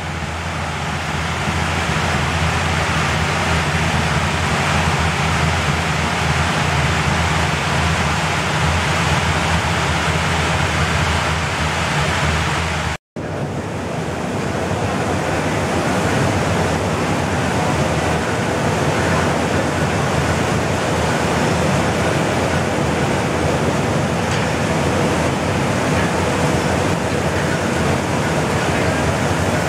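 Steady rush of air from the electric blowers that force air through paddy drying bins, with a low hum under it. The sound cuts out for an instant a little before halfway, then carries on.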